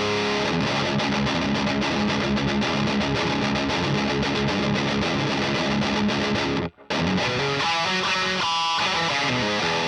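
Heavily distorted electric guitar played through a Diezel VH4 preamp pedal, boosted by an Abominable Electronics Hellmouth, into the EL34 power section of a Rivera Knucklehead Reverb: rapid picked riffing that stops dead for a split second a little before seven seconds, then resumes with sustained ringing notes.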